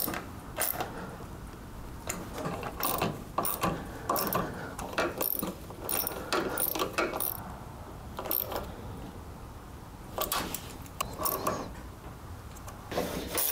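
Hand socket ratchet clicking in short runs as bolts are tightened, with brief pauses between the runs.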